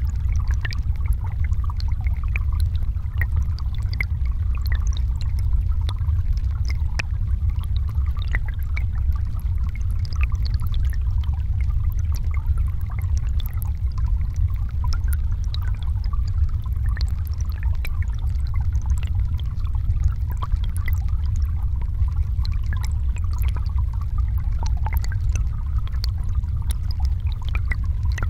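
River current recorded underwater in a shallow, rocky stream: a steady low rumble of flowing water with many small, scattered ticks and clicks over it.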